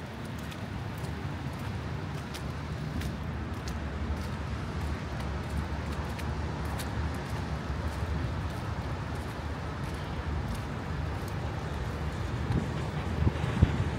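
City street ambience: a steady low rumble of road traffic and wind, growing slowly louder, with a few sharp thumps near the end.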